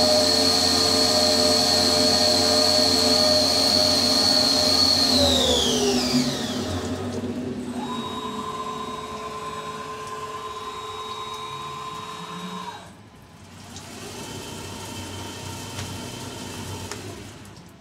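CNC mill spindle whining steadily at speed under flood coolant at the end of a keyway cut, then winding down in a falling whine about five seconds in. A lower, steady machine whine follows for about five seconds and stops suddenly, and a fainter one runs near the end.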